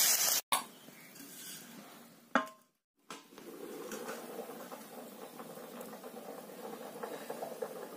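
Hot water poured into a hot iron kadai of frying meat and potatoes sizzles with a loud hiss that cuts off about half a second in. A single metal clank rings about two and a half seconds in as the steel lid goes on, and the covered curry then simmers with a faint steady hiss.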